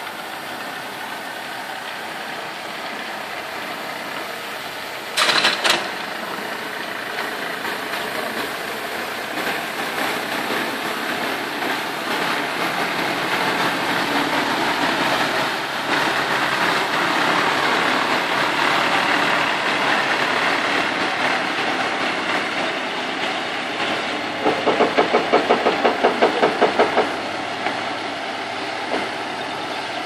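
Diesel engine of a tipper truck running as it creeps along, with a chip spreader on its tailgate laying stone chippings onto fresh bitumen during chip sealing. The noise swells in the middle. There is a brief loud burst about five seconds in, and a rapid rhythmic knocking of about five beats a second for a couple of seconds near the end.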